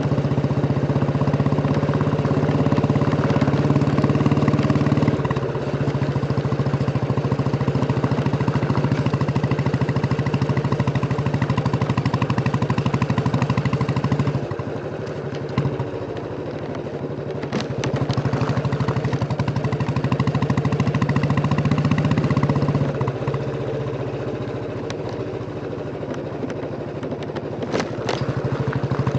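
Royal Enfield Bullet 350's single-cylinder engine thumping through its exhaust under way. The engine note drops and gets quieter about 14 seconds in and again about 23 seconds in, picking up in between and near the end.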